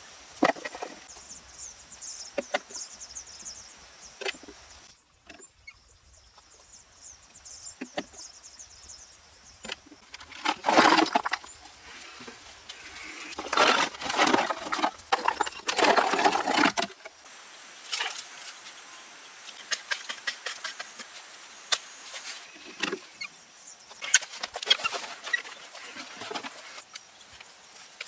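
Hand-tool work on earth and wood: scattered knocks and taps, with two longer scraping stretches in the middle like a shovel or hoe working soil. A steady high insect buzz sits behind it at the start and again in the last third.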